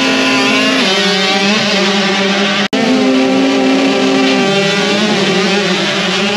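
A pack of 65cc youth motocross bikes revving at held throttle on the starting gate, their engine notes steady with sudden steps in pitch, then rising and wavering as the bikes pull away from the gate near the end. There is a sudden brief cut-out about halfway through.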